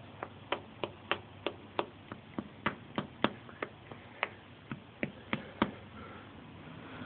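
A quick, slightly uneven series of sharp clicks, about three a second, which stop a second or so before the end.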